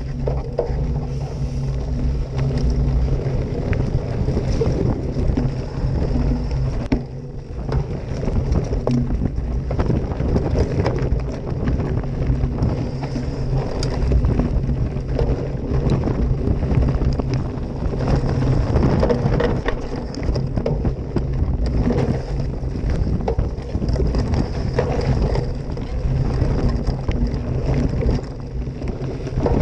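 Mountain bike riding down a dirt singletrack, heard from a camera on the bike: wind buffeting the microphone over a steady rumble of the tyres on the trail, with frequent rattles and knocks from the bike.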